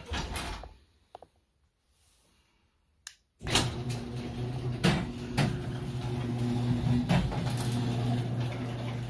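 Garage door opener motor running with a steady low hum as it raises a sectional garage door, with a few clicks and knocks from the door and its track. The hum starts abruptly about three and a half seconds in, after a short sound and then near silence.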